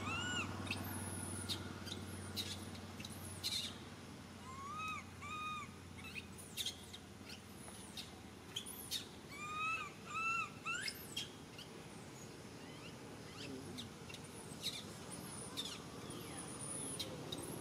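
Baby long-tailed macaque crying: short whimpering calls that rise and fall in pitch, mostly in pairs, repeated every few seconds.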